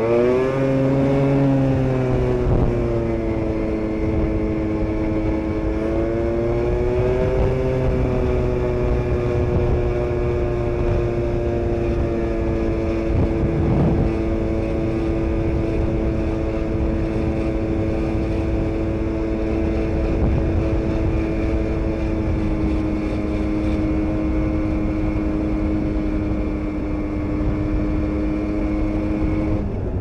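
Aprilia SR 125 two-stroke scooter engine, bored out to 172 cc with a Malossi kit, running loud under way. Its revs climb at the start and rise again about seven seconds in, then hold steady for a long stretch and fall off near the end.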